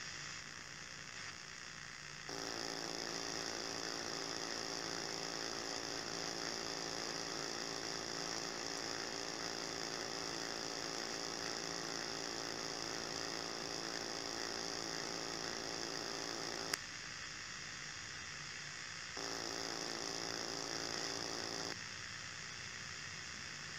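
Steady electronic hum and hiss, like analog video-feed static, made of several fixed tones, both low and high. It cuts in sharply about two seconds in, drops out with a click around seventeen seconds, comes back around nineteen seconds and cuts out again near twenty-two.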